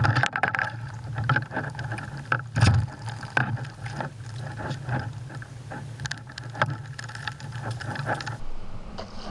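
A canoe under way, heard from a camera fixed on its bow: repeated knocks and clicks against the hull, the loudest a little under three seconds in, over a steady low hum and water noise. The sound changes abruptly near the end.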